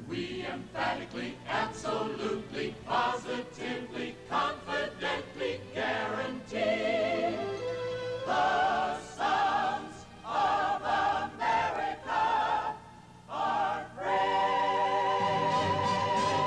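Choir singing with an orchestra: short, quick sung phrases, then longer notes, ending in a long held chord from about two seconds before the end.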